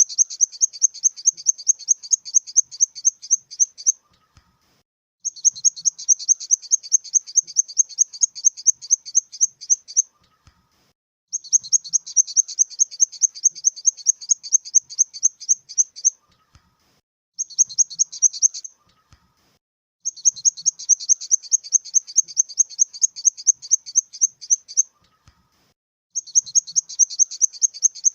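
Grasshopper stridulating: a high-pitched, rapidly pulsed chirring in repeated bouts of about five seconds, broken by pauses of about a second, with one shorter bout near the middle.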